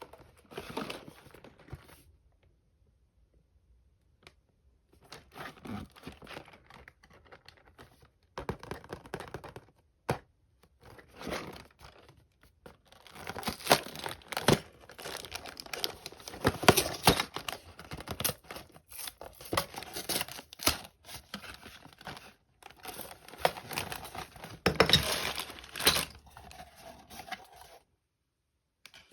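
LEGO set packaging being torn open and crinkled in bursts with short pauses, busier and louder in the second half.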